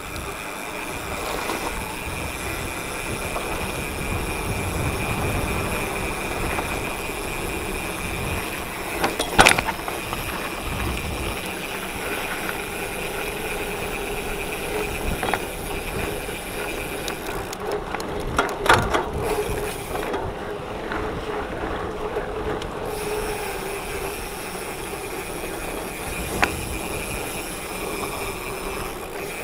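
Mountain bike ridden down a dirt trail: tyres rolling and rattling over the ground with wind rumbling on the microphone, and sharp knocks as the bike hits bumps, loudest about nine and nineteen seconds in.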